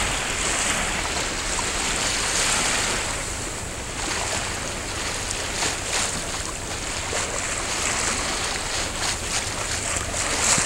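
Choppy seawater splashing and sloshing where two tidal currents collide, with wind rumbling on the microphone. Sharper splashes come in the second half.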